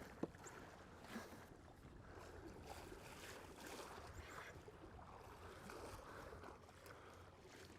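Near silence: faint water and wind noise around a kayak at sea, with a few light knocks.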